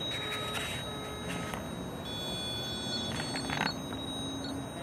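Ghost-hunting sensor device's alarm going off, a steady high-pitched electronic tone that shifts to other pitches for a moment around the middle, with a few faint handling clicks. It is sounding for no reason the hunters can find.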